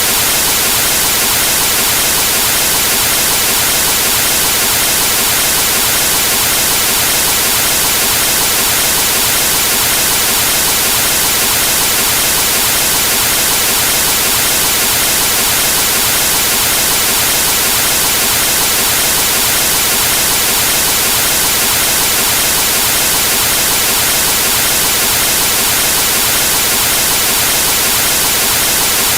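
Analog television static from a set with no signal: a loud, steady hiss of white noise, brighter in the high end, that never changes.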